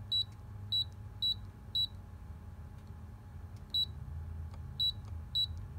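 Canon imageCLASS MF743Cdw touchscreen giving a short, high beep for each key press as a PIN code is entered. Seven beeps: four about half a second apart, a pause of about two seconds, then three more.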